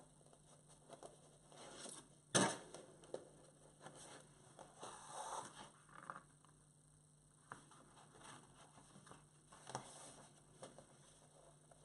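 Faint rustling and handling of paper pages while a journal's spine is stitched with needle and thread, with one sharp knock about two seconds in.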